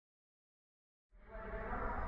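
Silence for about the first second, then steady background noise with a low rumble comes in and slowly grows louder.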